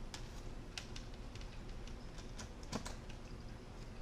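Faint, irregular light clicks of a precision screwdriver working a tiny Torx T6 screw out of a laptop's display hinge mount, with a few sharper ticks of metal on metal.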